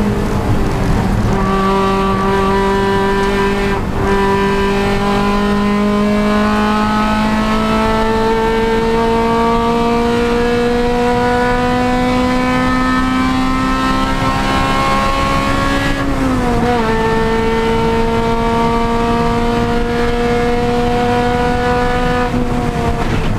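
Honda Civic Si race car's four-cylinder engine running hard at high revs. Its pitch climbs slowly and steadily for a long stretch, dips sharply about two-thirds of the way through, holds nearly level, then dips again at the very end.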